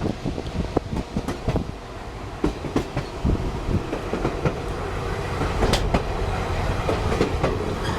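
Passenger railcar rolling along the track: a steady low rumble of wheels on rail, with irregular clicks and knocks throughout.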